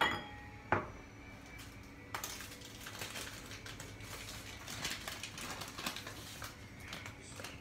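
A glass sauce bottle is set down with a sharp, briefly ringing clink, and a second knock follows under a second later. From about two seconds in come several seconds of rustling and small clatters as a bag of sugar is handled.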